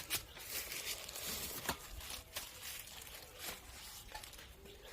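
A few faint, scattered clicks and rustles of handling.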